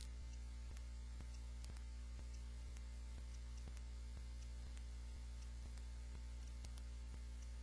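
Steady electrical mains hum with its overtones, with faint regular ticks on top: the recording's background noise, with no voice or music.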